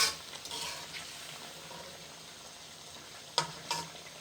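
Fish curry sizzling steadily in a karahi as the fish fries in the spiced oil and a little water. A metal spatula clinks against the pan twice near the end.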